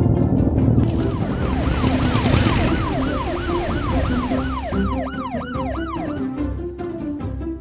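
A yelping siren sound effect, its pitch sweeping quickly up and down about three times a second, starting about a second in and stopping about six seconds in, over background music.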